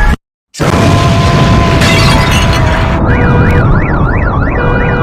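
After a brief cut to silence, a loud explosion sound effect bursts in and rumbles on, with a steady tone ringing through it. About three seconds in, emergency sirens start wailing, their pitch sweeping up and down quickly.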